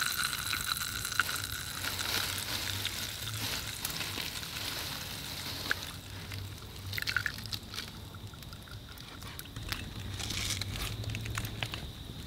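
Small utensils working hot pepper oil in a glass mason jar: a few light clicks and clinks as a spoon stirs and taps against the glass, over a steady soft hiss.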